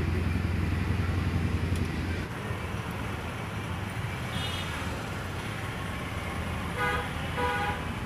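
Street traffic: a vehicle's engine drones steadily and fades about two seconds in, then a short high toot comes in the middle and a vehicle horn honks twice near the end.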